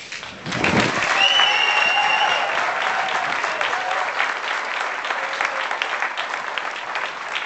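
Crowd applauding, starting about half a second in, loudest over the next couple of seconds, then slowly dying down.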